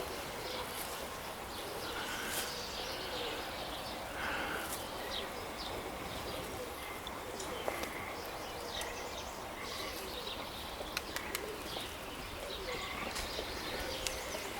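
Steady outdoor background with scattered short bird chirps and calls, and pigeons cooing.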